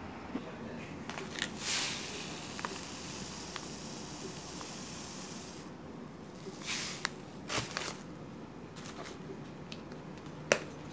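Light kitchen handling sounds over a steady low hum: a rustling, scraping hiss starting about a second in and lasting about four seconds, then a few soft knocks and clicks, the sharpest one near the end.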